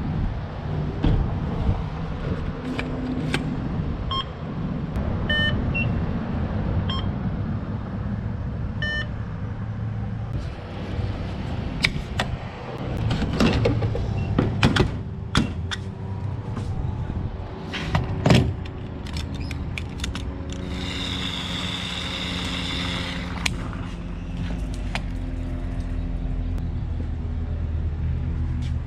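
Gas station fuel pump: its keypad beeps several times, the nozzle clacks and knocks as it is lifted and handled, and then the pump hums steadily as gasoline is dispensed.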